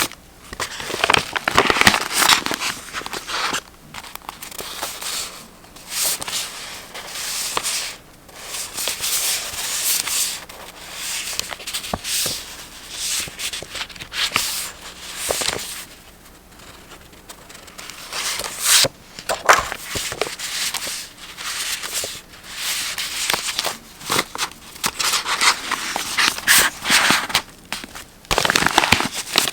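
Close-up paper handling: sheets of journaling paper and stickers rustling and crinkling in bursts of a few seconds, with brief pauses and a few sharp ticks.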